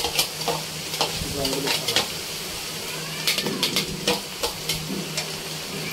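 Scattered clicks and taps as red lentils and spices are added by hand to chopped vegetables in an aluminium pot, the hand and a small plastic cup knocking against the pot, with a cluster of quick taps about three seconds in. A steady low hum runs underneath.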